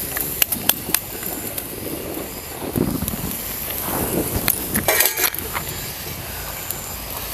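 Dhapate (spiced multigrain puris) deep-frying in hot oil in a kadhai: steady sizzling with scattered crackles. About five seconds in comes a short metallic scraping clatter as the slotted spoon works in the pan.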